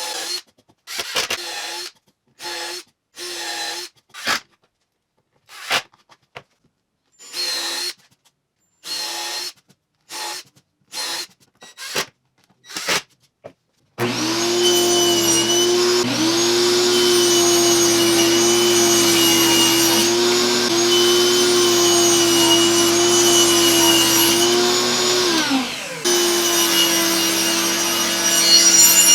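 Electric power tool motor, first run in many short bursts of a second or less with silence between, then running steadily at one pitch for about twelve seconds, stopping briefly and starting again near the end.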